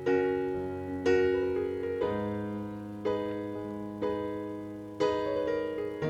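Background music: soft piano chords struck about once a second, each ringing out and fading.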